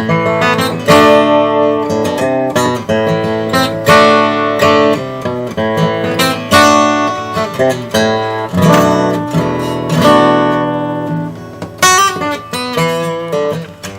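Gibson Hummingbird acoustic guitar being played, with strummed chords and picked notes ringing out one after another.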